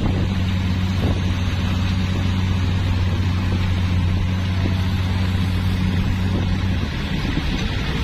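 Scania 114C 380 dump truck's six-cylinder diesel engine running steadily while it tips its load with the body raised, its pitch dropping to a lower idle about seven seconds in.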